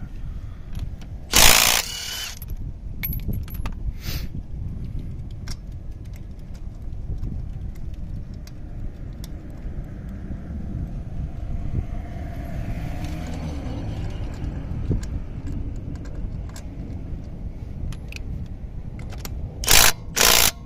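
Cordless Milwaukee Fuel impact wrench hammering in a loud burst of under a second shortly after the start. Small metallic clicks and rattles follow as a wheel lock is handled and threaded on. Near the end come two short impact-wrench bursts as the lock is run down tight on the wheel stud.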